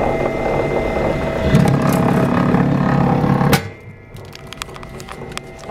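Electric wire stripping machine running with a cable being fed through its rollers and blade. The machine grows louder and heavier under load about a second and a half in. It drops off abruptly with a sharp click a little past halfway, leaving a quieter running sound with light clicks.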